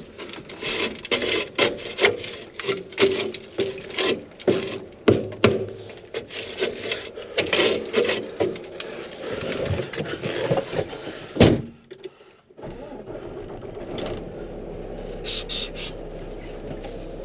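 Semi truck's diesel engine pulling under load, with frequent irregular knocks and rattles, as the loaded end dump tries to drive out of a muddy pit. About 12 seconds in it breaks off suddenly and gives way to a steadier, quieter hum.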